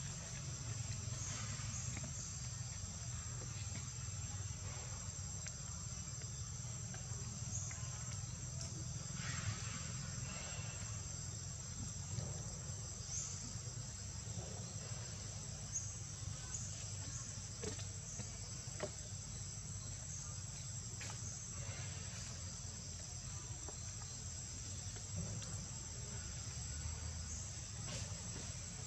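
Steady, high-pitched insect chorus that does not let up, over a low background rumble, with a few faint brief sounds.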